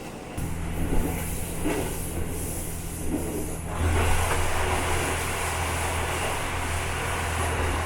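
Diesel railcar engine humming steadily, then growing louder with more rumble about four seconds in as it works harder.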